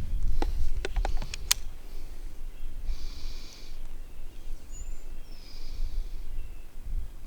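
A quick series of sharp metallic clicks in the first second and a half, from a single round being hand-loaded into a DPMS .308 AR-style rifle and the action being worked. After that come two short soft rustles and a brief faint chirp.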